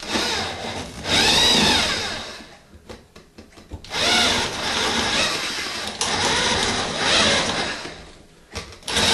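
Electric drill boring into a wooden fire block, run in three bursts, the motor speeding up and slowing down within each.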